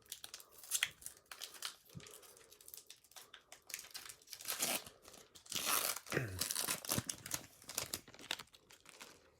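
A foil Pokémon booster pack wrapper being torn open and crinkled by hand, in irregular crackling rustles that are loudest a little past the middle.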